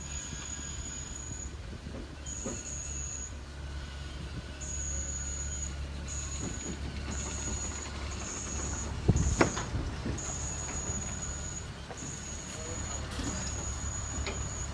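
Portable electric lifting jacks' motors whining in short on-and-off runs, over a steady low hum. A loud sharp knock about nine seconds in.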